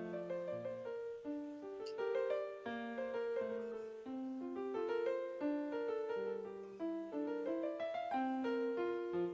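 Piano playing alone: a steady, flowing stream of notes, one struck after another, with no singing.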